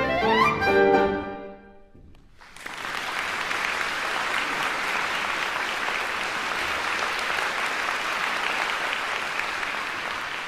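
Clarinet and piano close a piece with a rising clarinet run and a final chord that rings off within about two seconds. After a short pause, an audience starts applauding and keeps up steady clapping.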